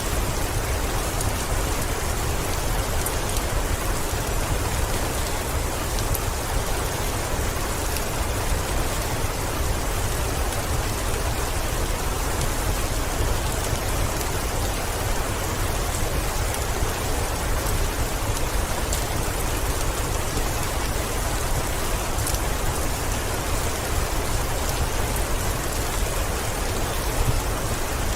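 Heavy rain running steadily on a window pane, with scattered faint ticks of single drops.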